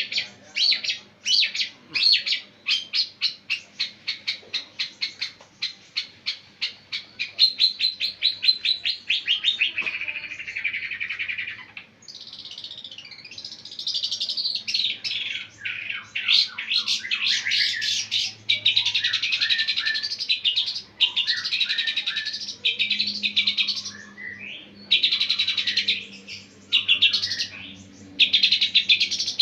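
Long-tailed shrike (pentet) singing loudly: a run of sharp repeated notes that speeds up into a rapid trill over the first ten seconds, then dense, varied song phrases in short bursts.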